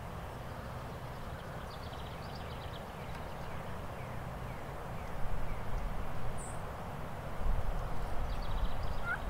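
Open-field ambience with no turkey calling: a steady hiss of outdoor air noise with faint, distant songbird chirps, and low rumbling gusts of wind on the microphone growing from about halfway through.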